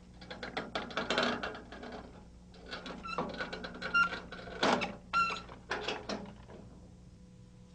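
Metal parts of a portable sawmill being handled during setup: quick clusters of clicks, clanks and rattles, with a few short squeaks, over a low steady hum.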